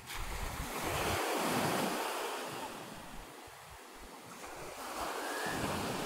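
Surf washing onto a sandy beach, swelling, easing off around the middle and swelling again near the end, with the wind noise on the microphone reduced by a wind-removal filter.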